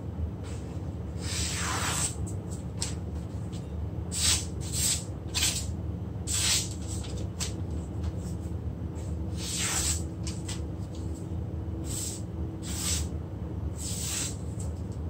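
Chinese cleaver slicing through strips of paper in a sharpness test: about ten short, crisp swishes, some in quick pairs, over a steady low hum.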